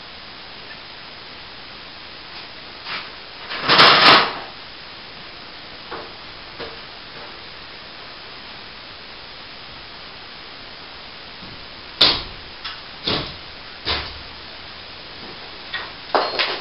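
Broken plasterboard being pulled down and handled: a loud scraping crash about four seconds in, then a few sharp knocks and clatters near the end, over a steady hiss.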